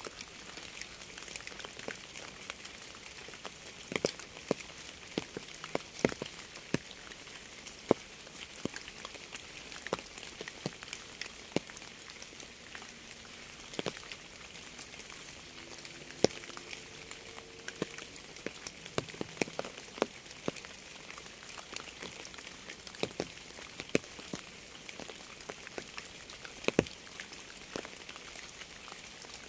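Steady rain hiss with irregular individual drops striking a surface, some of them loud and close.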